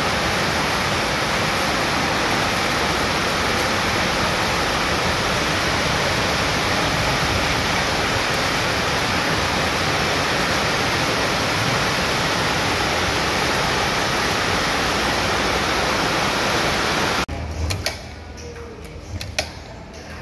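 Mixing machine running with a steady, loud rushing noise that cuts off suddenly about seventeen seconds in. After it come quieter scattered clicks and knocks.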